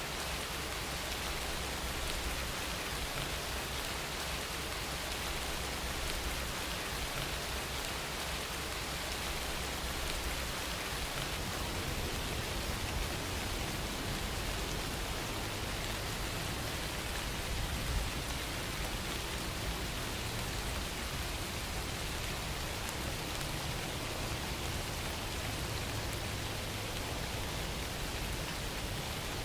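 Steady rain falling, an even, unbroken patter with a single faint tick well into it.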